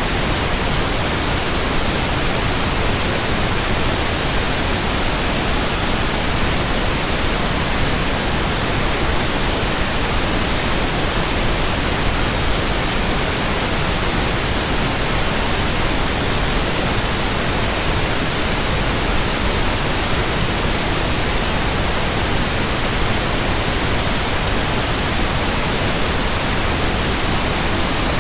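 Steady white noise: an even, unchanging hiss spread across all pitches, with no pulses or breaks.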